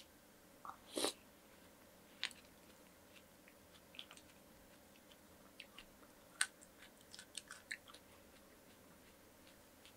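Close-miked chewing of a spoonful of watermelon punch: a juicy bite about a second in, the loudest sound, then scattered wet clicks and smacks of chewing, bunched between about six and eight seconds.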